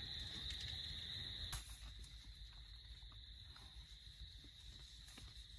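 Faint, steady high-pitched chorus of distant calling animals over a low rumble, with one click about a second and a half in.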